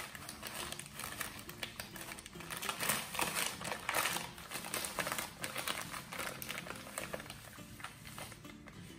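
Plastic zip bag crinkling and rustling as gloved hands handle and open it, with irregular small clicks throughout.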